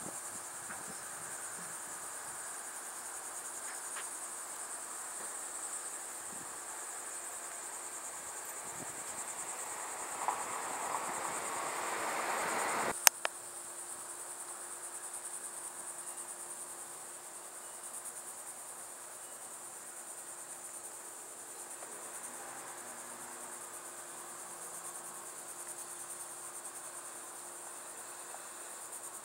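Insects trilling steadily in a continuous high-pitched chorus. About halfway through, a rush of noise builds up to a sharp click, and after it a faint steady hum sits underneath.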